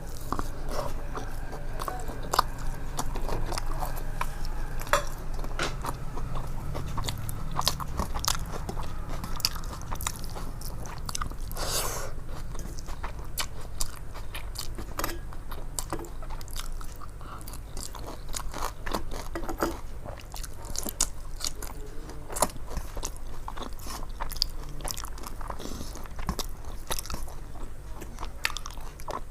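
Close-up eating sounds: chewing and biting with frequent crunches and wet mouth clicks, over a steady low hum.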